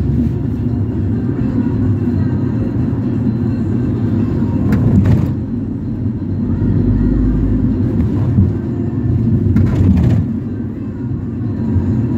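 Ford Transit minibus on the move, heard from inside the cabin: a steady low engine and road rumble, with two brief knocks about five and ten seconds in.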